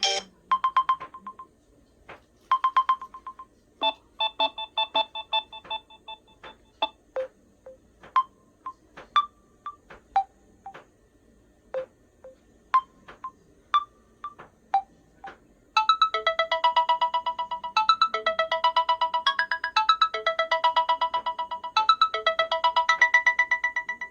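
Samsung Galaxy A21s ringtone playing: a melody of short struck notes, sparse at first. About two-thirds of the way through it turns into a faster, busier repeating figure.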